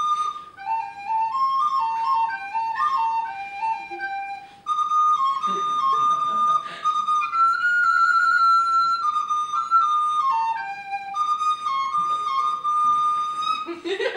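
Solo flute playing a slow melody of stepped notes, pausing briefly partway and then holding one long high note.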